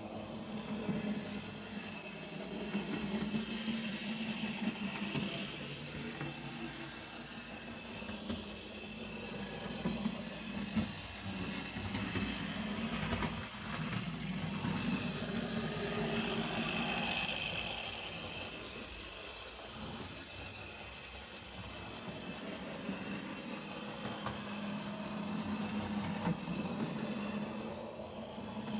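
Vintage Fleischmann 1306 HO-scale shunter running on the layout track: its small DC motor and gearing hum steadily, with the wheels running on the rails. The sound swells and fades in loudness as the locomotive circles the track, running well again after a cleaning and overhaul.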